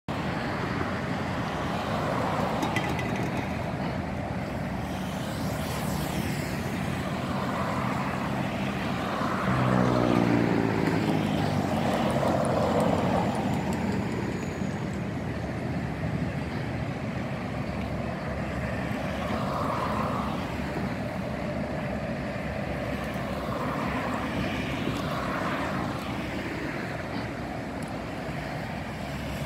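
Steady motor traffic noise with engines passing by. One vehicle passes about ten seconds in, its engine note dropping in pitch as it goes.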